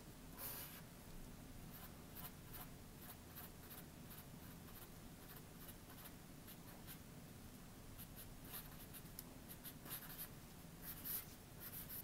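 Felt tip of a Sharpie marker drawing on paper: a quick run of short, faint scratching strokes, with a louder stroke about half a second in and a few more near the end.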